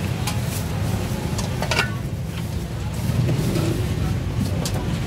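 Steady low rumble of street traffic, with a few sharp clicks over it.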